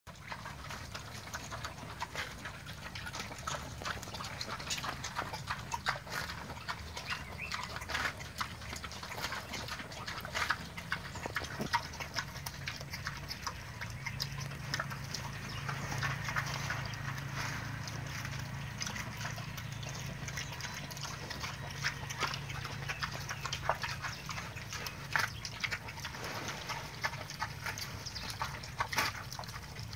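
Crossbred wild boar pigs chewing and crunching jackfruit, with irregular sharp crunching clicks throughout.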